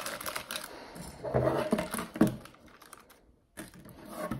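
Small metal screws and T-nuts clicking and rattling inside a crinkling plastic bag as hands rummage through it, with a few louder handling knocks between one and two and a half seconds in.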